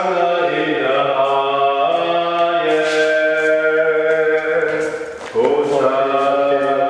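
Background music with singing: long held vocal notes that step from pitch to pitch, with a short break about five seconds in before the next phrase.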